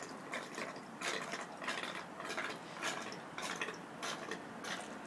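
A bottle of wine being downed in one go through a straw: quick repeated gulps and glugs, about two to three a second.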